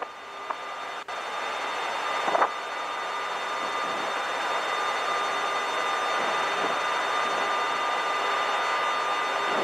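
Steady flight-deck noise of a Boeing 767-300ER in flight on approach: an even rush of airflow and air-conditioning with a faint steady whine. A brief short sound comes about two and a half seconds in.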